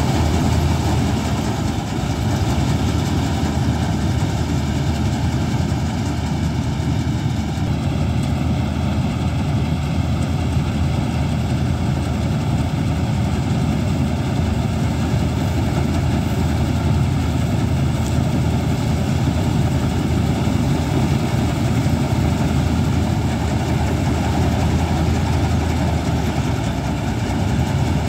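Steady running of a John Deere 4WD tractor-mounted Standard combine harvester's diesel engine and machinery as it harvests paddy. The tone shifts slightly about seven seconds in.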